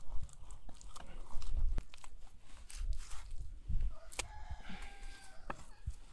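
Red hollow bricks being set by hand into wet mud mortar: irregular clicks and knocks of brick on brick, scraping and dull thumps as the bricks are pressed down. A chicken calls briefly in the background about four seconds in.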